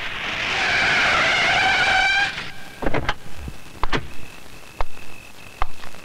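Car tyres screeching as a vehicle brakes hard to a sudden stop, the squeal ending abruptly about two seconds in. A few sharp clicks and knocks follow, over a steady high chirp of crickets.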